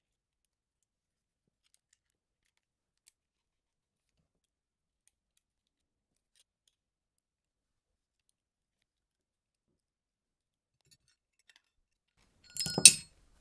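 Mostly near silence with a couple of faint ticks, then near the end a short, loud metallic clatter of aluminium paintball-marker parts knocking together as they are handled, with a brief ring.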